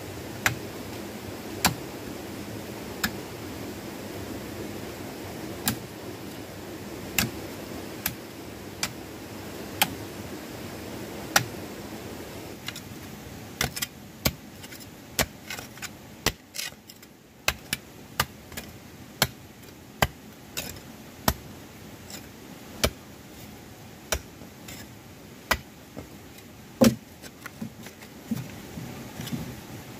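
Irregular sharp knocks and clicks of hand work, a few seconds apart at first and coming much faster from about thirteen seconds in, over a steady low background noise that fades around the same time.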